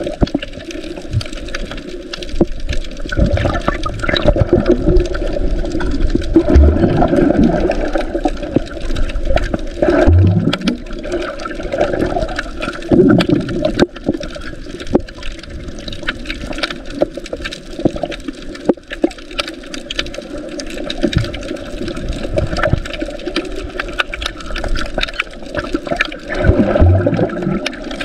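Muffled water noise picked up by a camera held underwater, swelling into louder rushes every few seconds.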